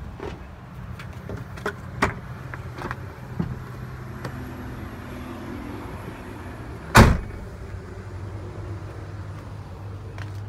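Clicks and knocks from handling an open pickup truck cab door, with one loud thump about seven seconds in, over a low steady hum.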